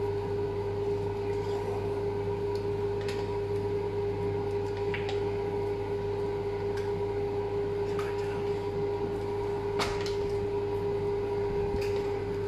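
A steady machine hum from a kitchen appliance or fan, with scattered light clicks and scrapes of a spatula against a stainless steel pot as batter is folded.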